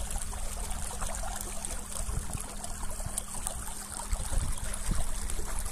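Water trickling and lapping along a moving kayak's hull, over a low rumble, with a faint steady low hum underneath.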